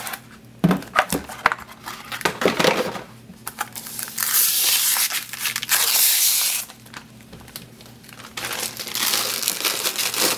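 Clear protective plastic film crinkling as it is peeled off the glossy plastic case of an external hard drive, with a few sharp handling knocks in the first three seconds. The longest, loudest peel runs from about four to nearly seven seconds in, with more crinkling near the end.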